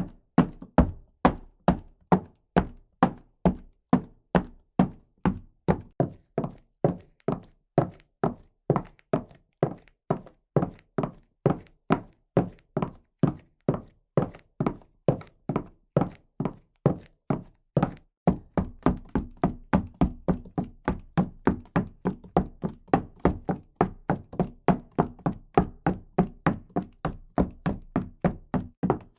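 Footsteps at a steady walking pace, about two steps a second. About eighteen seconds in they change to quicker steps, nearly three a second, over a steady low background sound.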